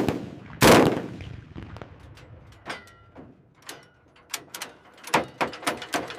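A loud, sharp bang just as it starts and another under a second later, each with a short ringing tail. Scattered lighter clicks and knocks follow, with a quicker run of clicks near the end.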